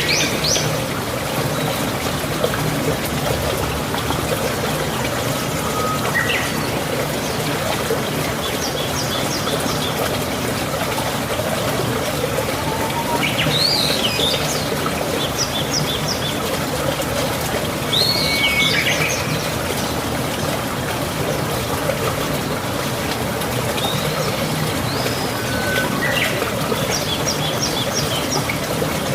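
Small birds chirping and trilling in short phrases every few seconds over a steady background hiss.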